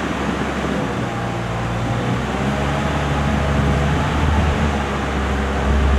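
Engine of an articulating boom lift running steadily, its low hum shifting in pitch a few times.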